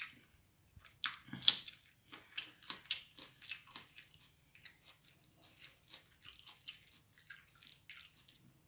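Wet, sticky clicks and smacks of eating by hand: fingers working fish curry into puttu on a plate, and chewing. They come as a quick run of short smacks, loudest about a second and a half in, and grow sparser toward the end.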